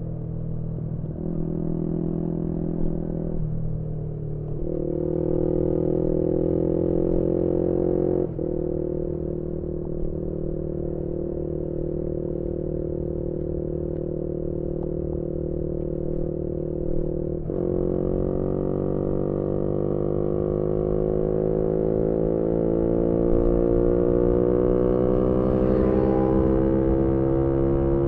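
2018 Yamaha MT-125's single-cylinder engine through a GPR aftermarket exhaust, heard onboard under way with wind rumble. Its pitch jumps with gear changes in the first few seconds, holds steady for a long stretch of cruising, then drops and climbs slowly as the bike accelerates over the last ten seconds.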